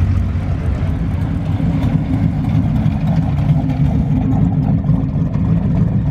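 Engine of an older car or truck running steadily at a low pitch as it drives slowly.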